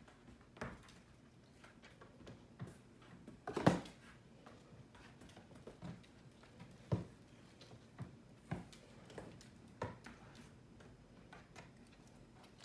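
Scattered light taps and clicks of goat kids' hooves and a small dog's claws on a hard kitchen floor, irregular and unhurried, with one louder knock about three and a half seconds in.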